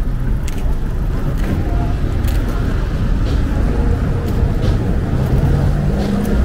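City street ambience: a steady low rumble of road traffic, with light ticks scattered through and a passing vehicle's engine hum coming up near the end.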